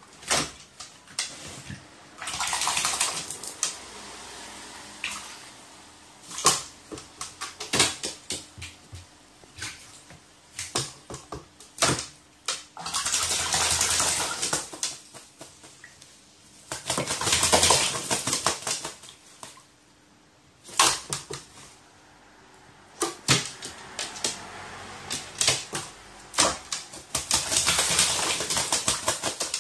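A crow bathing in a plastic tub of water, splashing as it dips and flaps its wings. Several longer bursts of splashing, with many short sharp splashes and knocks in between.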